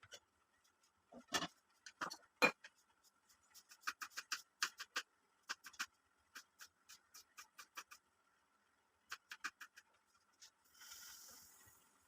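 Light clicks and taps of utensils being handled in a kitchen, a few per second, with two louder knocks near the start and a brief hiss near the end.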